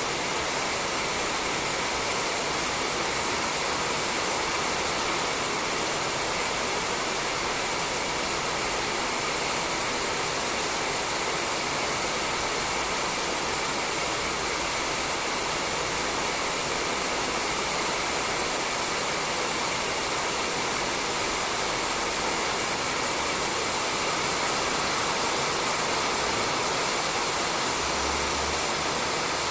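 Steady, heavy rain falling on a roof, an even hiss without distinct drops or breaks.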